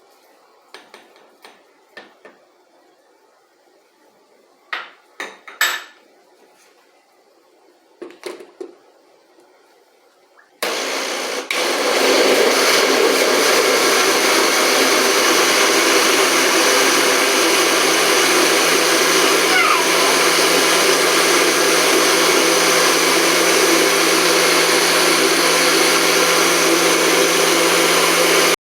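Countertop blender switched on about ten seconds in and running steadily at full speed, blending corn cake batter of corn, eggs, sugar, milk and oil; it stops abruptly at the end. Before it starts there are a few light knocks and clicks.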